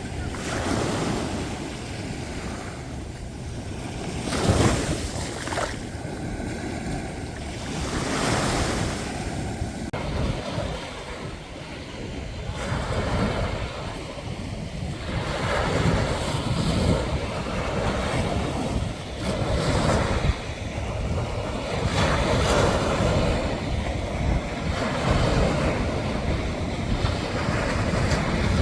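Ocean waves washing in and breaking, a rushing noise that swells and falls every few seconds, with wind buffeting the microphone.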